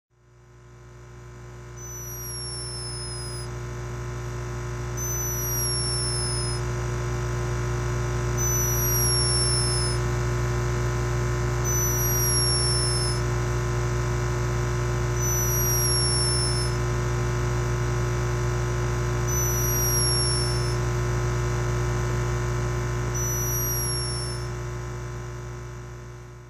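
A sleeping hummingbird snoring: a thin, high squeak that falls in pitch, about one and a half seconds long, repeated seven times roughly every three and a half seconds. Under it runs a steady low electrical hum, and the whole fades in at the start and out at the end.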